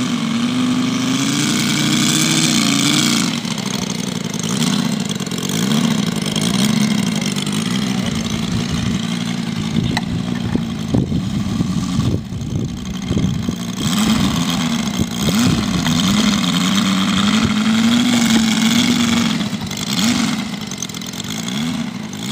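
Moki 150 cc five-cylinder radial engine of a large model TBM Avenger running on the ground while taxiing, its pitch rising and falling repeatedly with the throttle.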